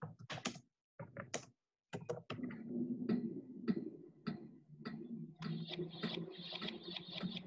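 Soundtrack of a stop-motion animation film heard over a screen share: scattered clicks and short scratchy noises, then from about two seconds in a low steady hum under a dense run of ticks and clicks that gets busier near the end.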